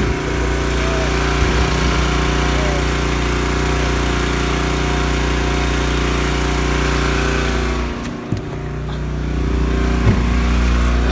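Small fishing boat's motor running steadily at low speed. A couple of short knocks come near the end.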